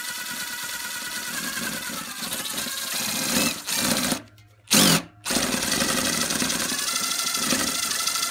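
DeWalt DCF887 three-speed brushless impact driver hammering at full speed as it drives a lag screw into tough wood. It cuts out about four seconds in, gives a short burst, then hammers on steadily.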